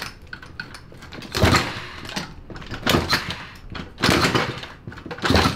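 A 108cc clone engine in a Honda Z50R mini bike being kicked over four times, about once every second and a half. Each kick is a short clattering burst. It is being started on starting fluid squirted into the intake, with no carburetor fitted, and it does not run yet.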